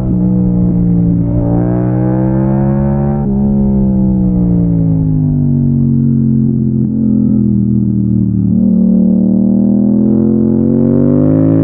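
Yamaha MT-07's parallel-twin engine under way. The revs climb, drop sharply at an upshift about three seconds in, then sink slowly as the throttle eases, and rise again under acceleration near the end.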